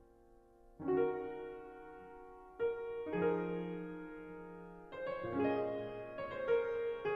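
Piano music: a chord struck about a second in after a quiet start, followed by further chords and notes every couple of seconds.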